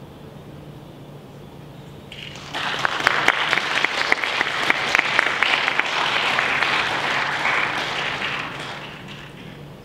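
Audience applauding. It starts after a short quiet pause, about two and a half seconds in, holds strong, then dies away near the end.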